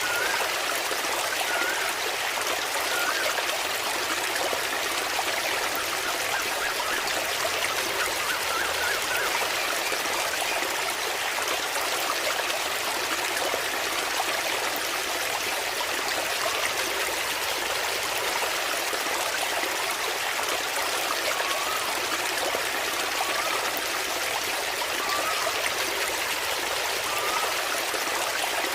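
Waterfall water splashing and trickling steadily, with faint short chirps now and then near the start and near the end.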